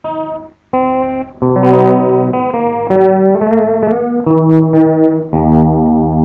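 Electric guitar played through a multi-effects processor: a slow melody of sustained single notes, some with vibrato, starting after a brief pause. About five seconds in a low note is held steadily under the melody.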